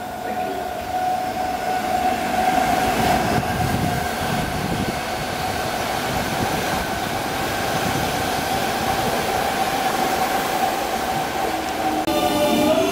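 London Underground S stock electric train running through at speed: a steady rumble of wheels on rail with a steady high whine from its traction equipment. Near the end a second S stock train comes in close with a layered electric whine that rises in pitch.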